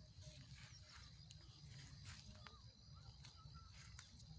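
Near silence: faint outdoor background with a low rumble and a few faint ticks.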